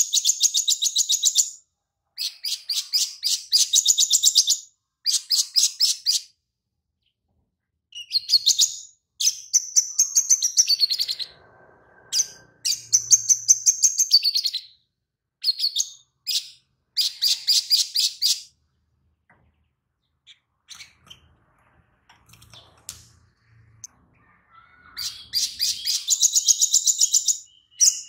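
Caged male olive-backed sunbird singing: bursts of rapid, high, chattering notes one to two seconds long with short gaps, its song filled with phrases copied from lovebirds. It goes quiet for a few seconds past the middle, then starts again near the end.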